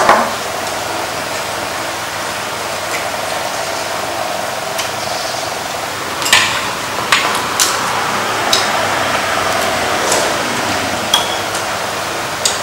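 Spoons and chopsticks clinking against bowls and a metal pan as people eat, a handful of sharp clinks in the second half over a steady background hum.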